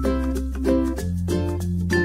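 Background music: a plucked-string melody with quick, evenly spaced notes over sustained bass notes.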